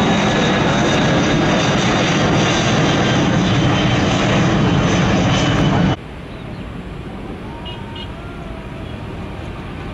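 Jet airliner engines at takeoff power as the plane climbs out, a loud, steady roar. About six seconds in it cuts off abruptly to a quieter, distant jet sound from another airliner taking off, slowly growing louder.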